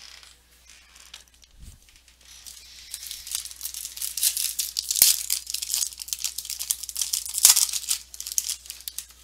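A foil Panini Playbook football card pack being torn open by hand and its wrapper crinkled, starting a few seconds in, with two sharp, loud rips about halfway through and again near the end.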